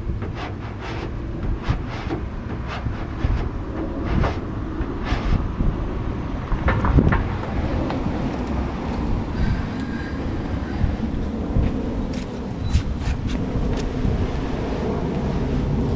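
Wind buffeting the microphone: a steady low rumble, with scattered light crackles and taps.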